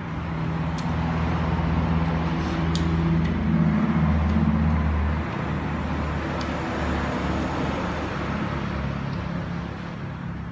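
A motor vehicle's engine passing by: a low hum that builds to its loudest about four to five seconds in, then slowly fades away.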